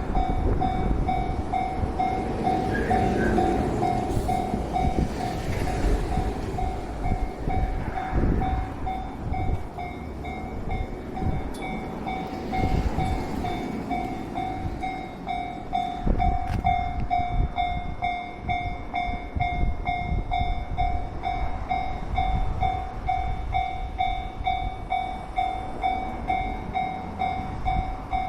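Japanese railway level-crossing warning bell ringing in steady, evenly spaced dings while a train runs over the crossing with a heavy rumble of wheels on rail.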